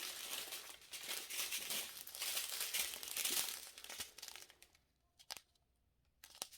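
Small plastic bags of diamond painting drills crinkling as they are handled, stopping about two-thirds of the way through, followed by a couple of light clicks.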